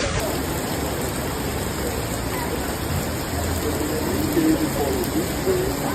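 Steady rush of heavy rain, with faint voices in the background about two-thirds of the way through.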